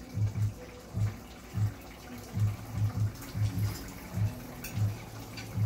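Irregular low thumps, about two a second, with light clinks and scrapes of a spoon serving food from a frying pan onto a plate.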